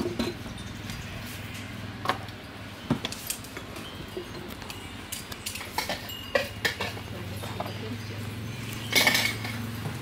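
Metal spoons and crockery bowls clinking and knocking now and then while noodle soup is dished up, with a louder clatter near the end, over a low steady hum.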